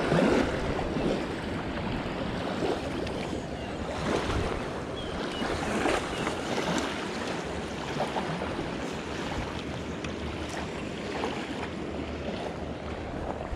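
River water washing and lapping at a sandy bank, with wind on the microphone.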